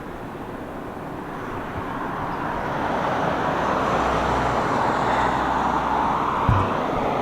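Road traffic below, a steady rush of tyres and engines that grows louder about two seconds in as vehicles pass. A brief low thump near the end.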